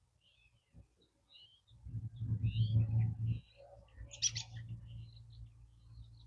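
Robins chirping in short, high notes scattered throughout, with one sharper, louder call about four seconds in. Underneath is a low hum, loudest for a second and a half from about two seconds in, then steady and fainter.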